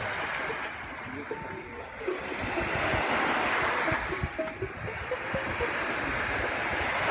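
Small sea waves breaking and washing onto a sandy beach, the surf swelling about three seconds in and again near the end, with wind buffeting the microphone.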